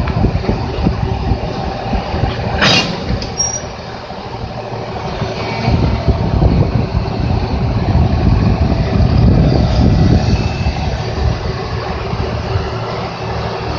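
Diesel switcher locomotive's engine running as it slowly pulls a train along the track, with the steel wheels rolling on the rails. A brief high squeak comes about three seconds in.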